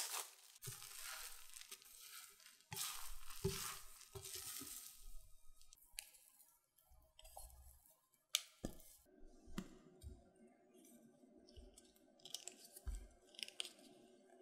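Thick, sticky yeast batter being handled: soft wet tearing and pulling sounds as the stretchy batter is lifted and lowered into a dish, with a few light taps and clicks against the dish.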